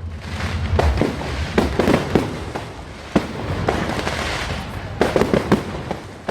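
Fireworks going off: a scattered run of sharp bangs and cracks, with a hissing spell in the middle and a quick cluster of bangs about five seconds in.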